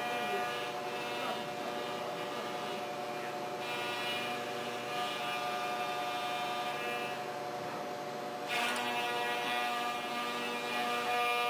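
End mill on a milling machine cutting an aluminium block: a steady whine of several held tones under a hiss of cutting noise. The cutting noise swells about three and a half seconds in, eases, and comes back louder about eight and a half seconds in.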